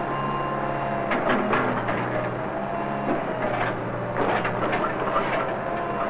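JCB 3 backhoe loader digging: its engine runs steadily under a hydraulic whine that rises and falls. Several clanks and knocks from the arm and bucket come about a second in and again between three and a half and four and a half seconds in.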